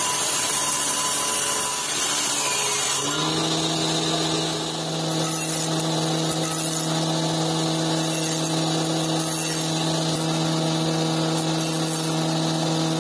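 A table saw rips a length of wood for about three seconds. Then a jointer takes over, running with a steady hum as the wood is planed over its cutterhead.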